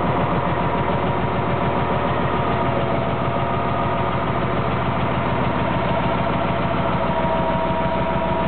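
2002 Sterling L8500 dump truck's diesel engine idling steadily.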